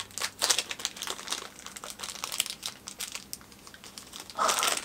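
Mystery pin packaging crinkling and crackling as it is unwrapped by hand, then a short, loud gasp near the end.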